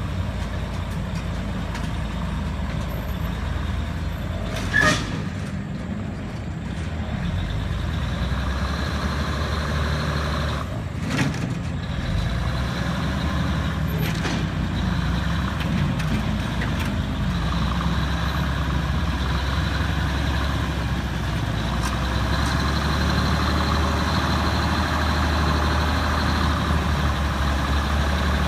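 Engine of a 5-ton six-wheel-drive truck running steadily under way, with two brief sharp knocks about five and eleven seconds in.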